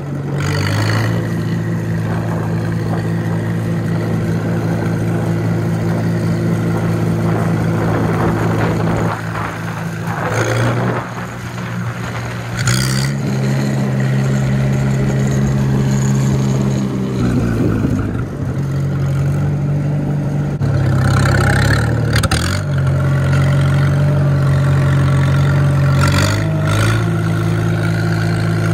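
Oliver tractor engine running through a straight exhaust pipe as the tractor is driven, its engine speed stepping up and down a few times with the throttle.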